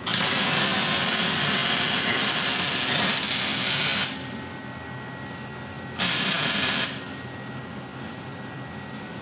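Welding on a car's new twin exhaust tips: the arc gives a loud, steady hiss for about four seconds, stops, and after a two-second pause hisses again for about a second.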